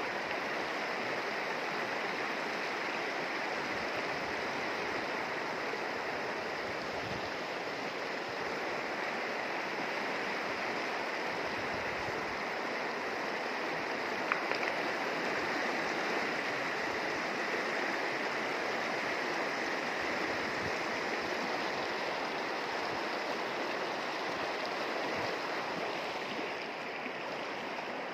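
Shallow mountain river running over stones and gravel: a steady rushing babble of water, with a single brief click about halfway through.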